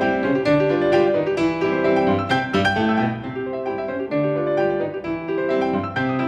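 Background piano music: a steady flow of struck notes.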